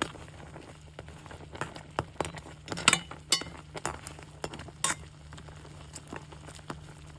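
A utensil clinking and knocking against a cooking pot while crabs are stirred in a coconut-milk sauce: a few separate sharp clinks spaced irregularly over a low steady hum.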